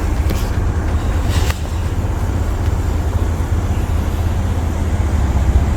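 Steady low rumble of a motor vehicle, with a couple of faint clicks.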